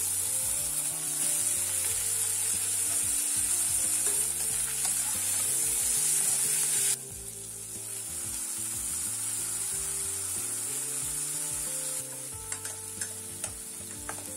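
Chicken and onion-tomato masala sizzling as it fries in a pan and is stirred with a spoon. The sizzle drops suddenly about seven seconds in and again near twelve, followed by a few light taps of the spoon.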